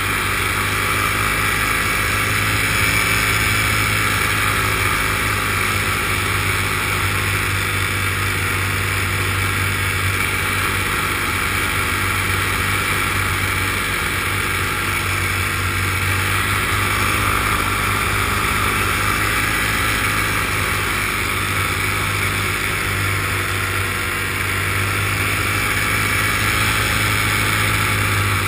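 Small camera aircraft's motors and propellers running steadily, as heard from the onboard camera, an even hum with a higher whine above it.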